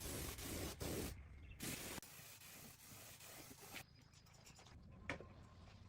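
Two bursts of hissing spray, the first about a second long and the second about two seconds, followed by a quieter stretch with a single sharp click near the end.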